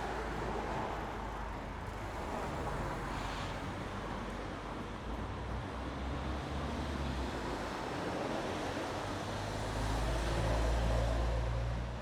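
City street traffic: motor vehicles passing in a steady wash of road noise, with a low engine rumble that grows loudest about ten seconds in as a heavier vehicle goes by, then eases off near the end.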